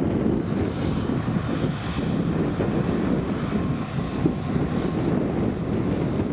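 Twin Rolls-Royce BR710 turbofans of a Bombardier Global Express XRS business jet running steadily at taxi power while the jet turns onto the runway, a continuous jet noise that is heaviest in the low range.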